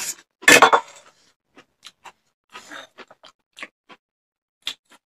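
Hand-eating noises: scattered short wet clicks of chewing and lip smacking, with a louder clattering knock about half a second in.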